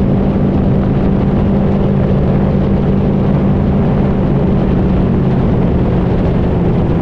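Boat motor running at a steady speed, its low hum under a loud, even rushing noise of wind and water.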